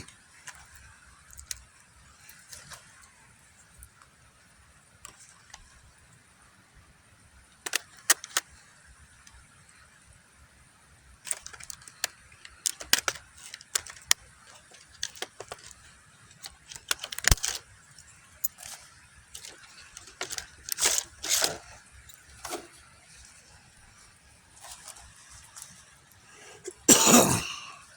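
A cardboard box and its packaging being handled and opened by hand: scattered clicks, taps and rustles, busier in the second half, with a louder rustle near the end.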